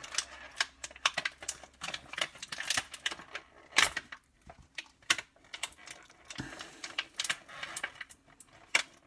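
Crinkling and crackling of a small clear plastic bag as fingers pick at the strong tape sealing it, irregular small crackles with a sharper crack about four seconds in and another near the end.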